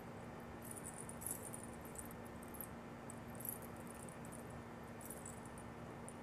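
Faint room tone with a steady low hum and a few brief, faint high-pitched crackles scattered through it.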